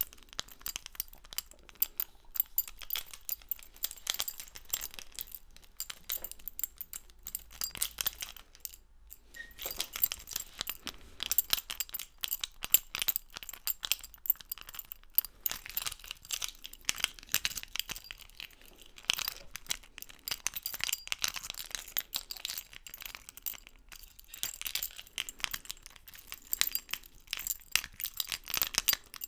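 Dense, irregular crackling and clicking that keeps on throughout, with a brief lull about nine seconds in.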